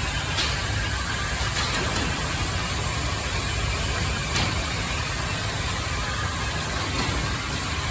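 Frame-moulding paper-wrapping machine running steadily: a constant mechanical hum and hiss, with a couple of faint clicks.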